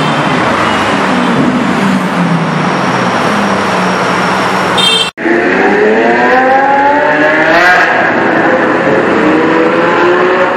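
Lamborghini supercar engines running hard in a tunnel: loud engine noise, a sudden break about halfway, then an engine note rising in pitch for about two seconds and climbing again as the car accelerates.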